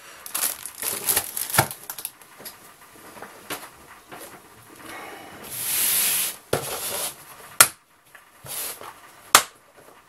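Plastic-wrapped biscuit packs crinkling and knocking as they are set into a cardboard shoebox, then the box scraping as it is slid across the table about six seconds in. Two sharp knocks near the end.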